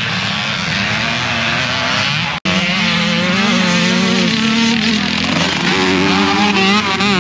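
Classic motocross bikes racing: distant engines at first, then, after a sudden cut about two seconds in, several bikes close by, their engines revving up and down as they power through a bend.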